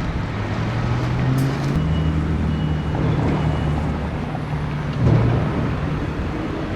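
Low, steady drone of motor-vehicle engines, with a brief faint high tone a couple of seconds in and a short swell about five seconds in.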